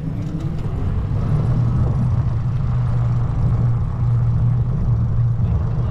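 Steady low hum of a vehicle in motion, growing louder over the first second or so, with a faint rising whine near the start.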